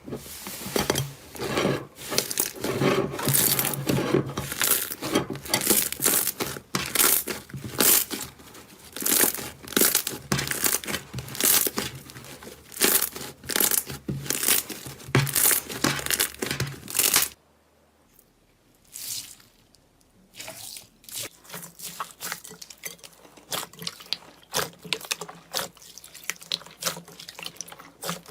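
Slime being squeezed and pressed by hand, giving a dense run of crackling and popping clicks. The sound stops abruptly about 17 seconds in, and after a few seconds of near silence quieter crackling and popping follows.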